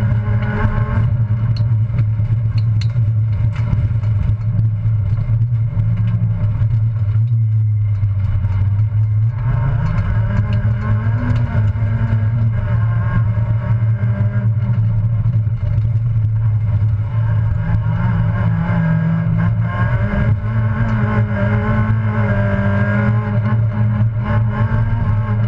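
Citroën Saxo race car engine heard from inside the cabin, running hard under racing load with the revs rising and falling through gear changes and corners. The engine note drops for a couple of seconds about a third of the way in, then climbs back up.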